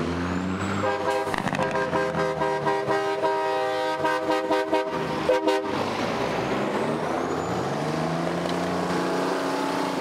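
Truck air horn blowing several notes at once in a series of blasts, ending in quick short toots about five and a half seconds in. After it, a passing truck's engine drones by, its pitch falling as it goes past.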